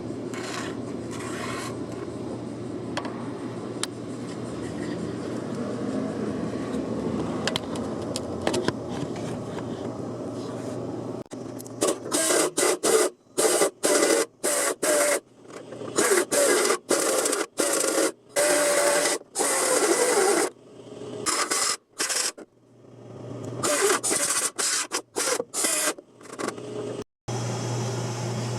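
Metalwork on a steel car body panel. A steady rasping tool noise runs for about the first half. Then come many short, loud bursts, each under a second and starting and stopping abruptly, like stitch welding or brief passes of a grinder.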